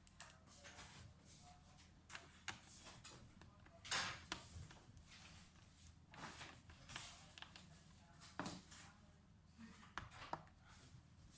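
Faint, scattered clicks and knocks of small hard objects being handled, about eight of them, the loudest about four seconds in.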